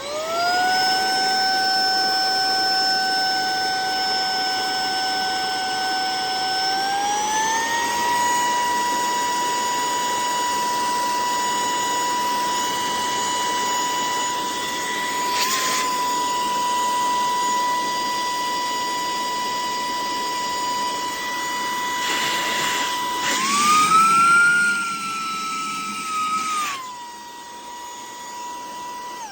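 A Saker mini cordless handheld vacuum runs with a steady, fairly loud motor whine. It spins up at the start and its pitch steps up about seven seconds in. Near the end the air rush grows louder and the whine climbs higher for a few seconds as the nozzle sucks onto a book, then settles back.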